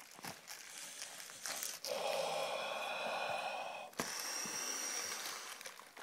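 Beyblade top parts and packaging being handled on a tabletop: a steady rubbing sound for about two seconds, ending in a sharp click, with a few small clicks before it.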